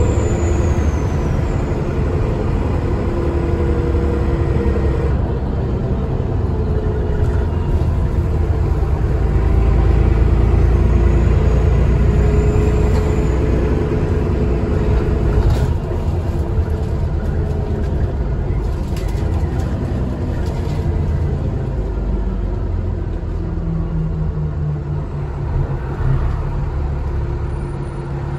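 Alexander ALX400 double-decker bus on the move, heard from inside: a steady diesel engine rumble whose pitch drifts up and down as the bus drives, with a faint high turbo whistle rising and falling over it.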